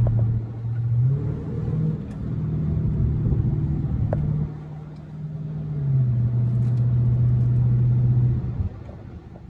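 Dodge Charger's V8 engine and road noise heard from inside the cabin while cruising at about 45–50 mph: a steady low drone whose pitch steps up about a second in, drops back around six seconds in, and fades near the end.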